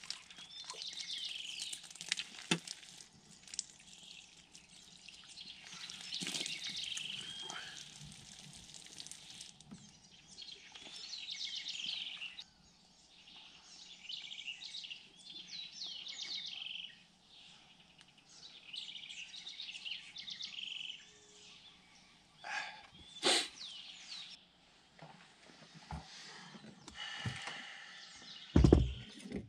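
Birds singing and chirping, with short repeated phrases, over faint outdoor background noise. A sharp knock comes about three-quarters of the way through and a louder thump just before the end.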